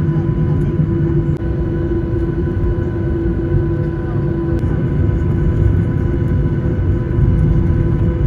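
Jet airliner engines running at a steady, loud level: a deep rumble with a steady whine over it.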